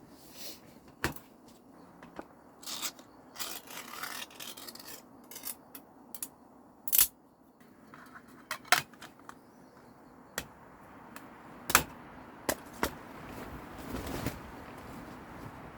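Irregular clicks, knocks and short scrapes of small objects being handled, about a dozen sharp ones spread unevenly, the loudest about seven, nine and twelve seconds in.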